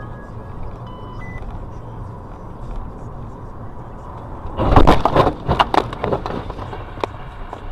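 Steady road and engine noise heard from inside a moving car. About four and a half seconds in comes a loud burst of rapid sharp cracks and bangs lasting about a second and a half, as a Nissan GT-R cuts in close ahead.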